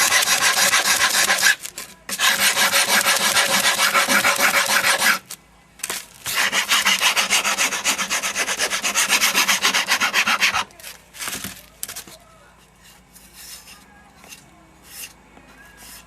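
A hand file rasping in quick back-and-forth strokes along the edges of a new plastic keycap glued to a wooden piano key, smoothing them flush. It runs in three long bouts with short pauses, then gives way to a few light knocks and handling sounds.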